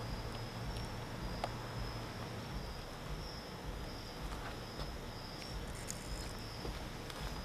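Night insects chirping: a thin high-pitched chirp pulsing roughly once a second over a steady background hiss.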